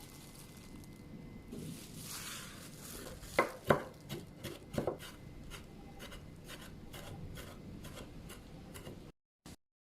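Kitchen knife cutting ingredients on a cutting board: soft rubbing and scraping, then a run of irregular sharp knocks. The sound cuts off abruptly near the end.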